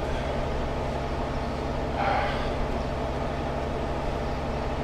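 Steady low mechanical hum of room background, with a brief louder sound about two seconds in.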